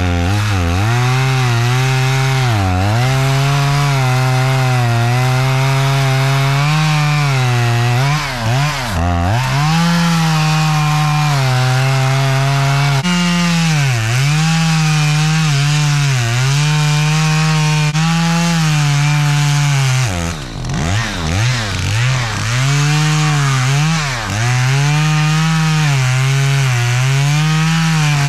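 Two-stroke chainsaw running at full throttle while cutting into a juniper trunk. Its pitch sags and recovers every second or two as the chain bogs in the wood, nearly dropping out around nine seconds in and again past twenty seconds. The chain is dull.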